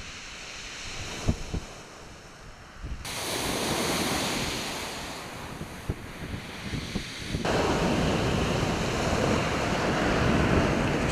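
Sea waves on the shore with wind buffeting the microphone, a steady rushing noise with occasional low thumps. The noise jumps in level and tone twice, about three and seven and a half seconds in.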